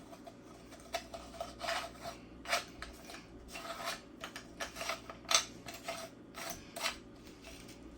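Meat grinder's retaining ring being screwed down over the cutting plate on the frozen grinder head: a run of short, irregular rasping, scraping strokes of the parts rubbing as it is tightened.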